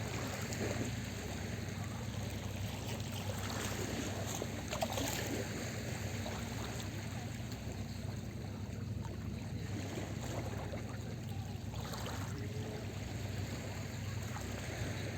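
Small sea waves washing onto the shore, with a steady low rumble underneath and a slightly louder wash about five seconds in.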